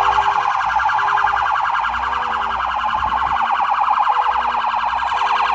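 Police Dodge Charger's anti-theft alarm sounding a loud, rapidly warbling siren tone through the car's siren speaker, set off because the alarm has been triggered.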